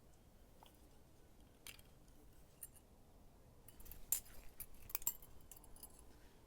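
Faint metal clicks and clinks from a Kershaw Lucha butterfly knife being handled. A few isolated clicks come first, then a busier run of clinks about four seconds in.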